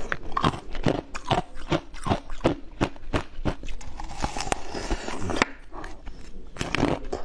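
Teeth biting into a block of ice with whole strawberries frozen inside, followed by chewing: a rapid series of sharp, crisp crunches, several a second, easing for a moment a little past halfway.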